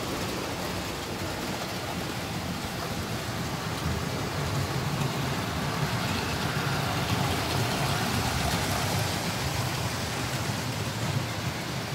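OO gauge model trains running on the layout's track: a steady rumble with a hiss over it, a little louder in the middle.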